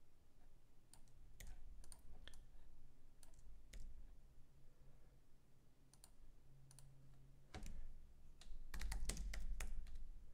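Scattered computer mouse clicks and keyboard key presses, with a quick run of typing near the end.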